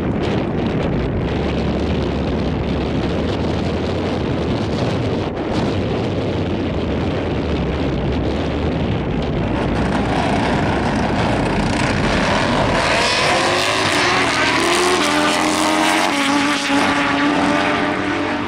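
Drag-racing motorcycle engines, at first a low rumble with wind buffeting the microphone. About ten seconds in, the bikes' engines rise to high revs, their pitch climbing repeatedly as they accelerate down the strip.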